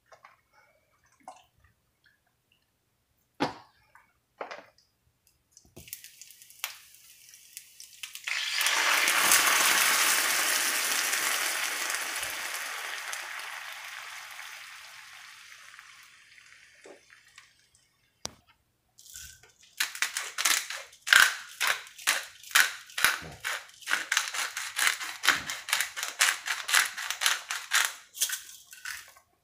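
Liquid hitting a skillet of dry rotini with a loud hiss that slowly dies away over several seconds. Later comes a hand pepper mill grinding black pepper over the pan, a steady run of gritty clicks about two a second.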